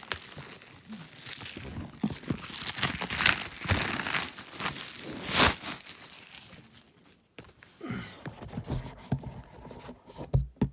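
Plastic shrink-wrap on a MacBook Pro box being torn and crinkled by hand, with the loudest rips about three and five seconds in. Quieter handling and a couple of dull thumps follow near the end.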